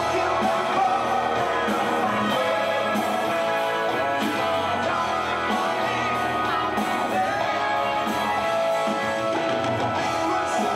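Rock band music with a singing voice, continuous and loud.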